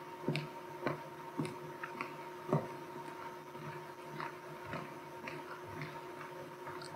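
Footsteps on a wooden gym floor, light taps about twice a second at an even walking pace, over a steady low hum.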